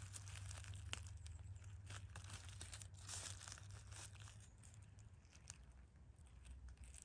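Faint crackling and rustling of damp leaf litter as a hand digs in and lifts a pale chanterelle from the forest floor, with a sharp click about a second in and the densest crackling around three seconds in.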